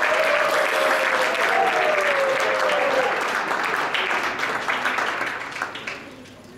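Audience applauding, with one voice holding a long wavering cheer over the clapping for the first three seconds. The clapping thins out and dies away near the end.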